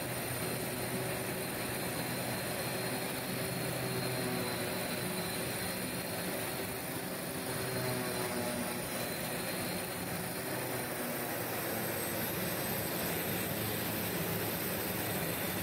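Piston aircraft engine running steadily with its cowling off, propeller turning, during a ground engine run.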